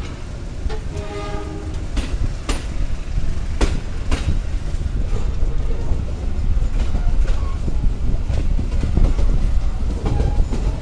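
Passenger train rolling out of a station: a steady heavy rumble with irregular sharp clacks of wheels over rail joints and points. A brief pitched note sounds about a second in.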